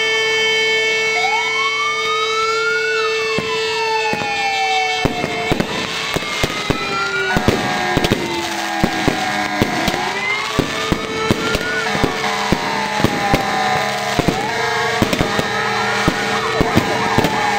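Fire engine sirens wailing, rising and falling in slow sweeps, over the hiss of fireworks fountains. From about five seconds in, a fast, uneven run of sharp firecracker cracks joins them.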